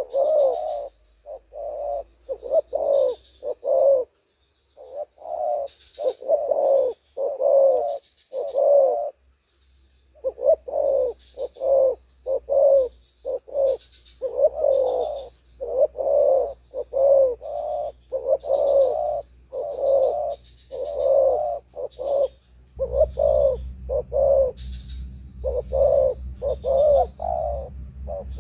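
Spotted doves cooing over and over in quick runs of low notes, with a faint high chirp repeating behind them. Late on, a low rumble joins in.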